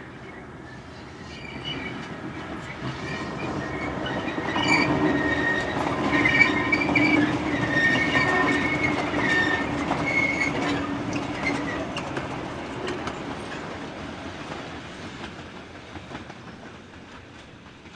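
Brill Model 75 railcar passing close by, its engine and wheels growing louder, peaking midway and then fading as it runs away. At the loudest part high, wavering wheel squeal sits over the running noise, with scattered clicks from the wheels on the rails.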